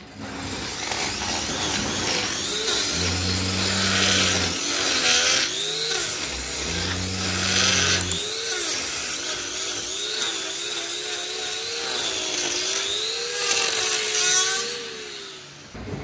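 Handheld power grinder cutting into a cow's hoof during hoof trimming. Its pitch wavers up and down as it loads and unloads against the hoof. A separate low steady hum comes in twice, briefly, about three and seven seconds in.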